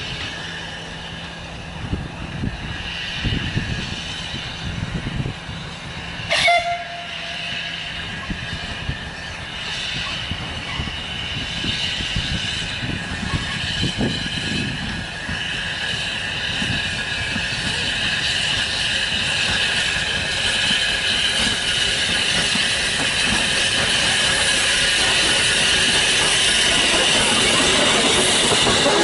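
Saddle-tank steam locomotive hauling passenger coaches as it approaches, its running and exhaust growing steadily louder as it nears. A short blast of the whistle about six seconds in.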